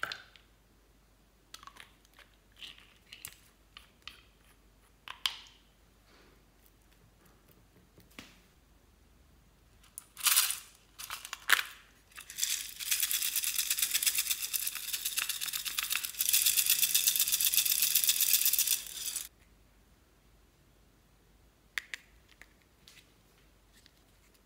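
Small plastic cosmetic containers clicking and tapping as they are handled and opened, with a dense, rapid rattle for about six seconds in the middle.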